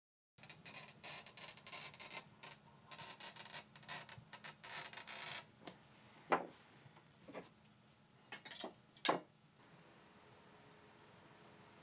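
Hand-held glass cutter scoring a sheet of stained glass: a scratchy, crackling hiss for about five seconds. Then a few sharp clicks, louder than the scratching.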